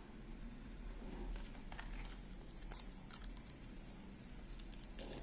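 Light handling of watch packaging: scattered soft clicks and paper rustles as the box contents and warranty card are moved about.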